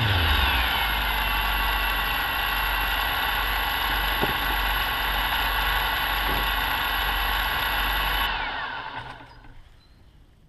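Small FPV quadcopter's brushless motors spinning at idle while it sits on the ground, a steady hum with a high whine. About eight seconds in the motors cut out and spin down to a stop.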